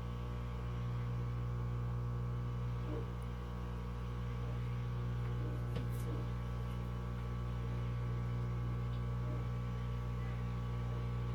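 Ninja Luxe Café Pro espresso machine's pump humming steadily while it pulls an espresso shot, with a few faint ticks.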